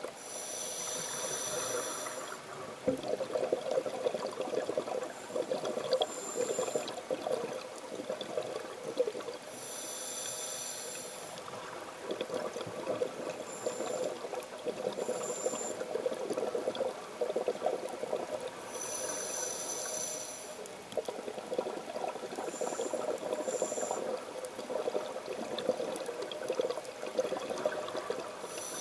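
A scuba diver breathing through a regulator underwater: three slow breaths about nine seconds apart, each a hissing inhalation followed by a long rattle of exhaled bubbles.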